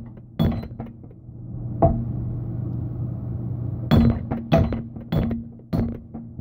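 Hammer blows on a steel axe head, seating it on a new wooden handle; each strike is a sharp metallic clink with a short ring. Two strikes, a pause of about two seconds with a steady low hum, then a quick run of about four blows.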